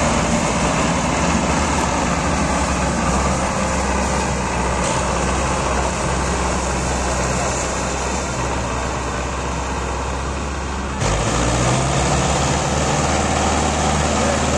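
Diesel engines of two Belarus tractors running steadily under heavy load, coupled together to pull a trolley loaded with sugarcane. The sound changes abruptly about eleven seconds in.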